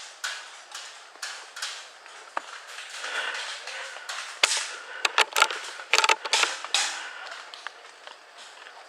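A run of irregular clicks, knocks and creaks, busiest and loudest in the middle.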